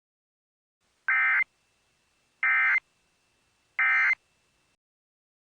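Emergency Alert System end-of-message code: three short, identical bursts of screechy digital data tone, about a second and a half apart, marking the end of the alert.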